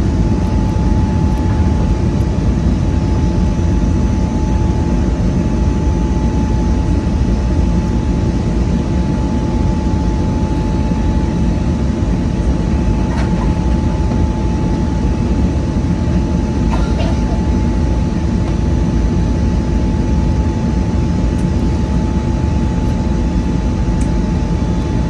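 Airbus A320neo jet engines at takeoff thrust: a steady low roar with a constant high whine over it.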